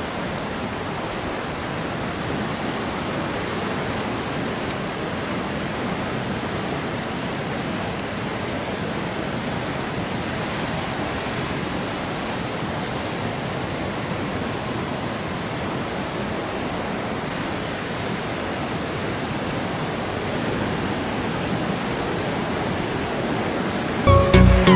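Steady rushing wash of ocean surf breaking. Music with a heavy beat cuts in right at the end.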